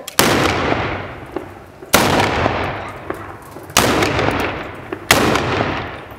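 Hand-held black-powder salute guns (Handböller) fired one after another in a slow series: four loud bangs about one and a half to two seconds apart, each dying away in a long echo.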